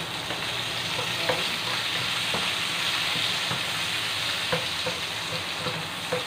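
Cherry tomatoes sizzling in hot rendered pork fat in a frying pan as a wooden spatula stirs them, with a few light knocks of the spatula against the pan.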